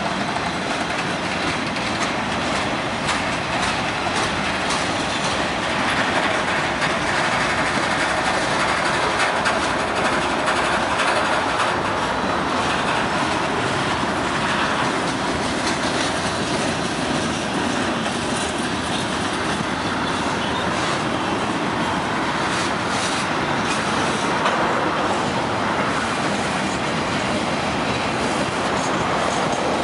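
Freight train cars rolling past at close range: a steady rumble and rattle of steel wheels on the rails, with scattered clicks and clanks from the wheels and cars.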